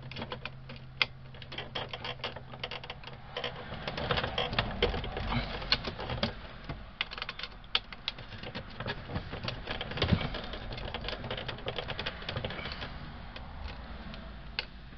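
Irregular rapid clicking and scraping of a screwdriver working a tightly fastened terminal screw loose on an RV converter's distribution panel, busiest between about four and eight seconds in.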